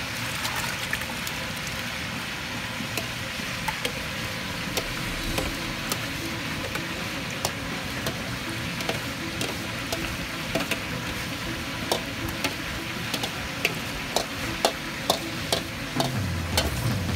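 Large aluminium pot of beef biryani gravy bubbling and hissing as a bowl of milk and sauces is poured in and stirred with a wooden paddle. A spatula scrapes the bowl against the pot rim, giving sharp clicks and knocks that come more often near the end.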